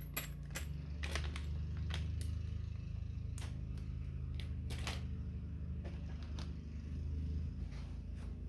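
Small metal horseshoe game tokens clinking and tapping as they are handled: irregular light clicks, one or two a second, over a low steady hum.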